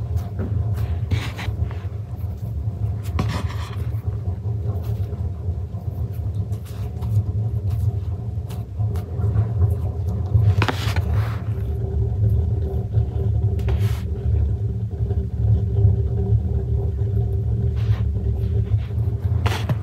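Steady low rumble with a faint hum over it, and a few soft scrapes and taps as dough is folded and pinched by hand on a wooden board.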